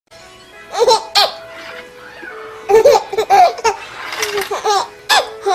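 A baby laughing in short bursts of giggles, three spells about two seconds apart, with background music underneath.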